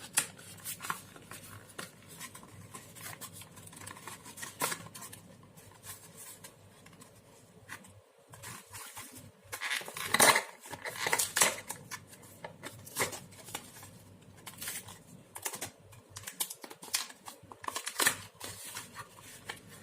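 A small cardboard box being opened and the paper inserts inside handled: scattered clicks, taps and rustles, busiest about ten to twelve seconds in.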